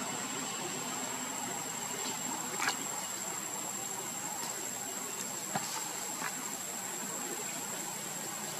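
Steady forest ambience: an unbroken high insect drone over a constant hiss, with a few faint short clicks, one about a third of the way in and two more past the middle.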